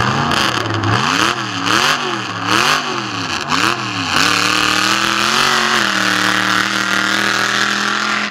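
Off-road truck's engine revving up and down in quick pulses, about five rises in three seconds, as it is worked over dirt mounds. It then holds a steadier, higher speed.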